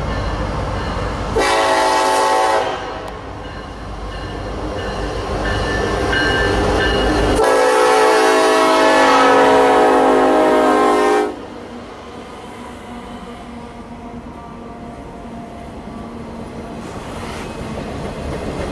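Norfolk Southern diesel freight locomotive passing close by with its engine rumbling. Its horn sounds a short blast, then a long one of about four seconds. The freight cars then roll past on the rails.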